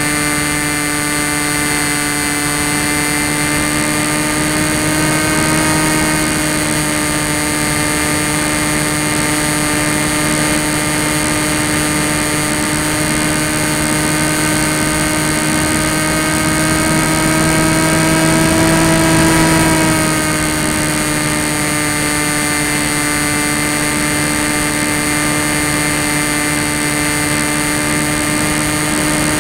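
Tek Sumo foam flying wing's electric motor and propeller running at a steady whine, recorded from the wing's own camera, with a hiss of rushing air. About two-thirds of the way through the pitch and loudness rise briefly, then drop back to cruise.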